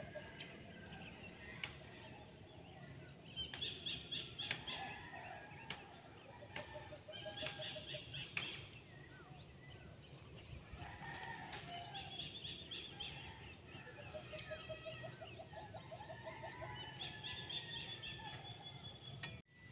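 Faint birds calling: a short high trill repeats about every four seconds, with lower chicken-like clucking calls in between.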